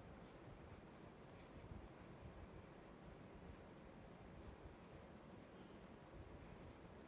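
Graphite pencil scratching faintly on drawing paper in short, irregular strokes.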